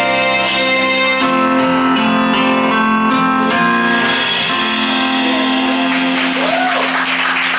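Instrumental ending of a pop song, sustained keyboard and piano chords with no vocal. Audience applause starts about six seconds in over the last held chord.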